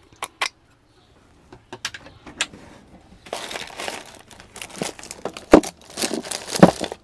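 Rummaging in a kitchen drawer: things in it rustling and clattering against each other from about three seconds in, with two sharper knocks near the end.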